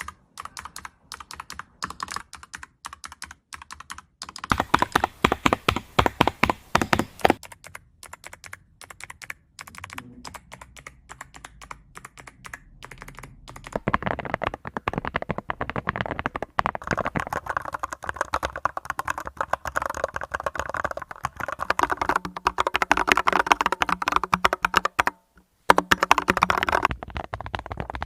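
Typing on a mechanical keyboard fitted with keycaps: rapid key clicks in runs, quieter and sparse at first, then two long, louder stretches of fast typing, with a short pause near the end.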